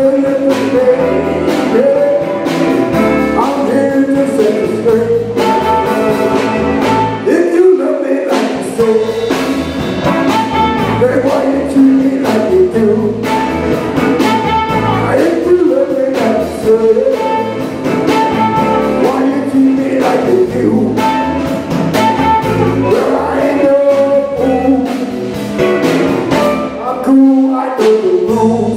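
Live blues band playing: electric guitar, bass and drum kit keep a steady groove under a lead line of held, bending notes, with harmonica played into a microphone.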